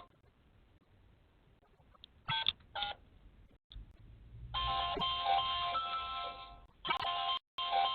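Apartment-building door intercom panel sounding its electronic calling tone in bursts. After near quiet it gives two short blips a little before halfway, then rings on steadily from just past halfway, with a brief break near the end.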